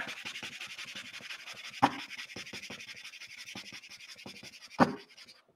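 Hand burnishing tool rubbed fast back and forth over paper, a steady scratchy rubbing of several strokes a second, with two louder knocks. It is burnishing the back of a photocopy image transfer to lift more ink onto the paper below.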